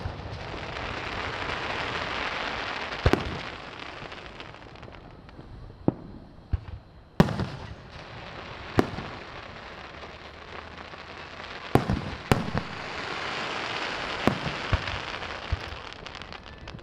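Aerial fireworks show: scattered sharp bangs of bursting shells, the loudest about seven and twelve seconds in, with two long stretches of dense crackling fizz between them.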